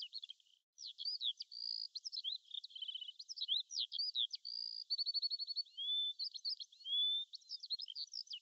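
Small songbirds singing faintly: a continuous run of quick varied chirps, whistled upward and downward glides and rapid trills, with a brief pause just under a second in.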